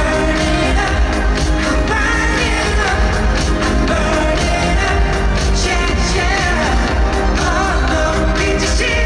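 Live K-pop song played loud through a concert PA: a male group singing over a pop-rock backing track with a heavy, steady bass beat.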